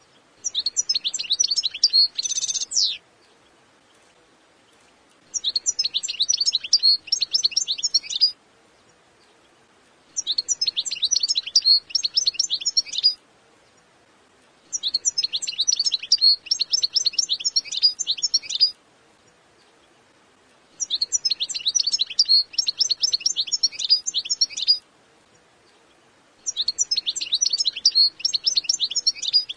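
European goldfinch singing: six phrases of rapid, high-pitched twittering notes, each two and a half to four seconds long, with pauses of about two seconds between them.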